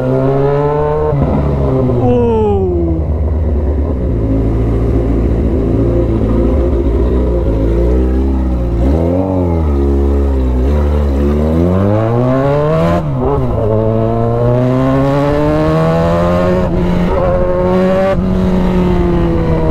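Kawasaki Z1000's inline-four engine under hard acceleration in a pickup test. It revs up through the gears, its pitch falling sharply at each upshift, eases off around the middle, then pulls hard again through two more upshifts.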